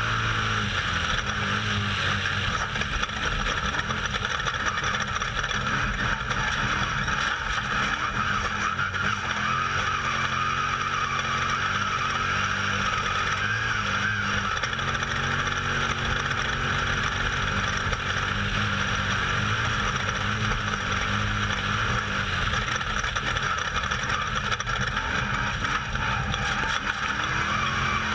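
Off-road race vehicle's engine running hard at a fairly steady pitch, heard from on board, with a constant rush of wind and terrain noise over it.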